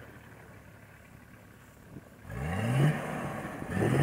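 Off-road 4x4's engine, faint at first, then revving up steeply about two seconds in, easing off, and revving up again near the end as the vehicle pulls forward through the grass under load.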